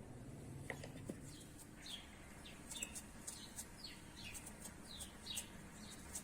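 Faint small-bird chirping: a quick run of short, falling chirps, several a second, beginning about a second and a half in.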